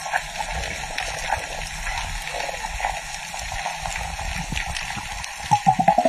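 Underwater ambience over a reef: a dense crackle of short clicks over a low rumble of moving water. Near the end come a few short tones that rise and fall in pitch.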